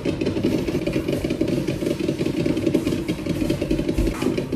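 A steady, fast mechanical rattle, like a small motor running, with a brief low thump about four seconds in.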